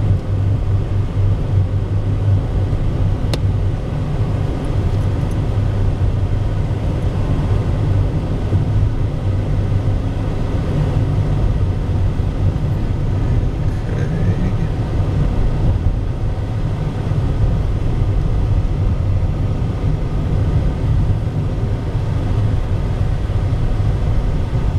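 Steady low rumble of a car's engine and tyres heard from inside the cabin while driving along a rough, patched country road.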